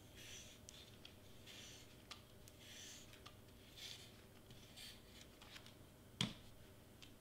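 Faint rustling of hands handling and pressing cardstock pieces while a large hot glue gun is worked, with one sharp knock about six seconds in as the glue gun is set down.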